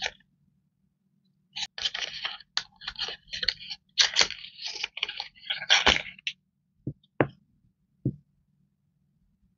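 Plastic and card packaging crinkling and rustling as a stack of masking tape rolls is pulled out of it, followed by three soft knocks as the rolls are set down on the table.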